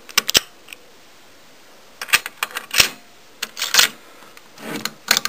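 Plastic protective cap pressed into an LGA 1366 CPU socket and the socket's metal load plate and retention lever closed by hand: a series of sharp clicks and clacks, a pair near the start, a cluster about two seconds in and more near the end, with some handling rustle between.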